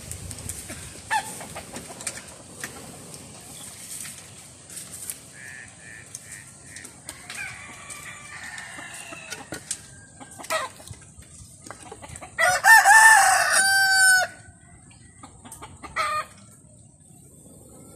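A rooster crows loudly about two-thirds of the way through, one long wavering call of nearly two seconds, with fainter crowing before it. Scattered short knocks and snaps of dry wood being handled and broken sound between the calls.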